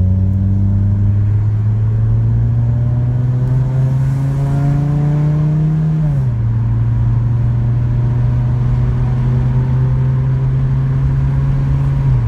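2004 Honda Civic EX's 1.7-litre four-cylinder engine, heard from inside the cabin as the car accelerates along the road. Its pitch climbs slowly until the automatic transmission shifts up about six seconds in. It then runs steady at cruising speed, and the pitch drops again near the end.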